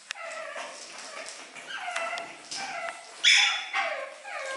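Seven-week-old pug puppies yipping during play, a string of short high calls that each drop in pitch. The loudest comes about three seconds in.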